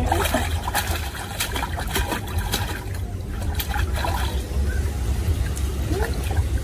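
Pool water splashing and lapping, with irregular small splashes over a steady low rumble.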